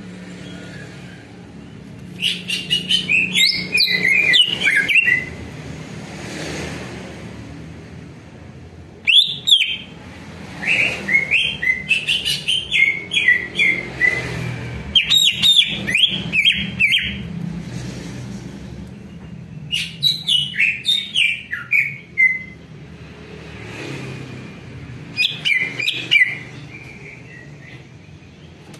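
Cucak ijo (green leafbird) singing in repeated bursts of rapid, sharp chirping notes, a few seconds apart, over a low steady hum.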